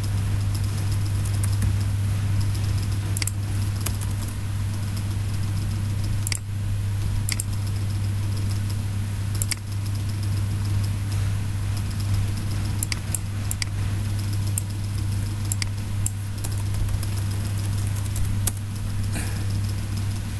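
A steady low hum throughout, with about a dozen sharp, scattered clicks from a computer mouse and keyboard.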